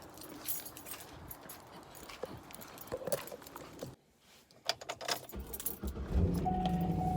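Keys jangling with rustling and clicks of handling. After a sudden break about four seconds in, a car's engine comes on with a steady low hum, and a steady higher tone joins near the end.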